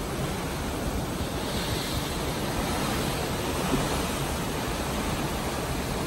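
Seawater rushing and churning along the hull of a ship under way, a steady hiss of foam and spray over a rumble of wind on the microphone.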